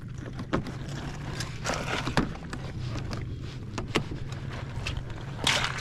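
Snowmobile engine idling with a steady low hum, with a few knocks and handling clicks, the loudest burst near the end.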